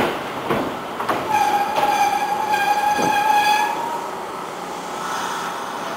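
A train horn sounds one steady note for about two and a half seconds. It is preceded and cut across by a few sharp clacks, about half a second apart, like wheels on rail joints.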